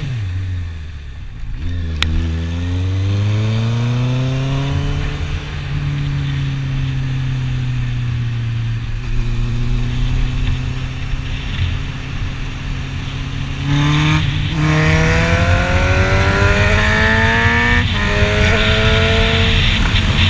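Honda CB650F's inline-four engine as the bike is ridden: the note falls at first, rises through an acceleration, then holds steady while cruising. Near the end it gets louder and climbs in pitch twice, with a gear change between.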